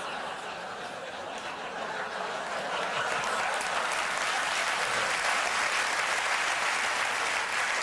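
Studio audience applauding a stand-up punchline, the clapping swelling about three seconds in and then holding steady.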